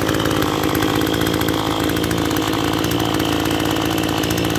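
Maruyama BIGM BP2520M brush cutter's 26 cc engine running steadily and smoothly, without change in speed.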